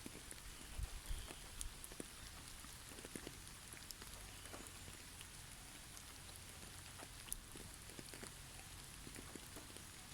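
Snowfall in a forest: a soft, irregular patter of light ticks over a faint steady hiss, with a few low thumps about a second in.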